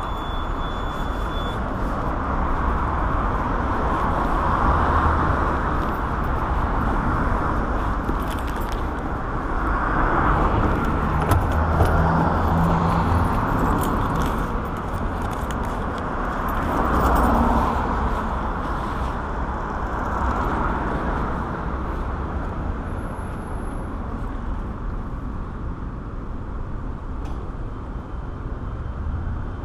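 City street traffic: cars passing, the road noise swelling and fading several times over a steady low rumble. Keys jangle and small clicks of handling come and go.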